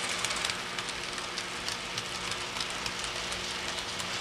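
Model train cars rolling past on the layout track: a steady hiss with a rapid, irregular patter of small metal wheels clicking over rail joints and turnouts, over a faint low steady hum.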